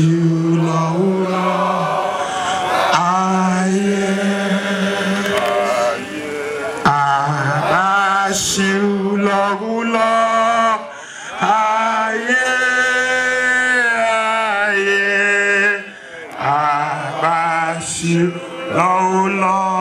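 A group of men singing an anthem together, in held sung notes on one melody, with short pauses between phrases.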